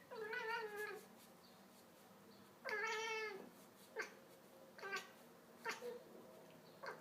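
A pet cat giving two drawn-out meows, then a string of short, sharp chirps: the excited calls of a cat fixed on a bird it can see but not reach.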